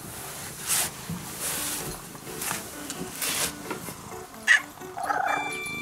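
Ginger-and-white domestic cat rubbing against the camera holder, its fur brushing the microphone in several hissy rustles, followed near the end by a sharp sound and a short cat call.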